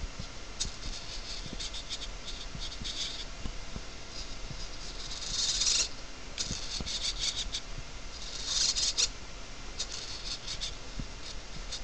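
Hobby radio-control servos whirring in short, high-pitched buzzing bursts as they drive an animatronic tongue up and down, with faint small ticks; the two loudest bursts come about halfway through and near the end.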